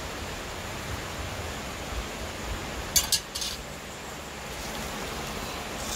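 Three or four light clinks in quick succession about three seconds in, over a steady rushing background.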